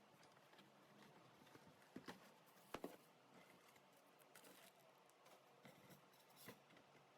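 Near silence with faint, scattered small clicks and rustles of objects being handled, the loudest a few sharp taps about two to three seconds in.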